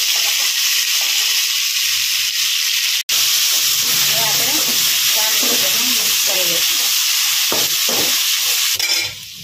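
Potatoes, green chillies and freshly added chopped tomatoes sizzling in hot oil in a metal kadai while a spoon stirs and scrapes them around the pan. The sizzle cuts out for an instant about three seconds in and drops away just before the end.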